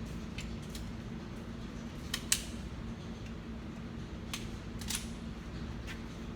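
Handful of sharp mechanical clicks from a 9mm 1911 pistol being handled and readied to fire, the loudest about two and a half seconds in. Under them runs a steady fan-like hum.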